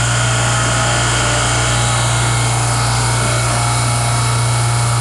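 Refrigeration compressor rack running: a steady, loud low hum with an even hiss over it.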